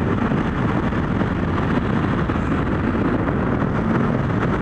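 Kawasaki GPZ1100 motorcycle's inline-four engine running steadily under way, mixed with steady wind rush on the microphone.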